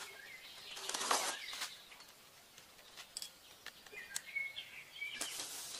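Birds giving short chirps, with a brief rustling swish about a second in, the loudest moment, and a few faint ticks after it.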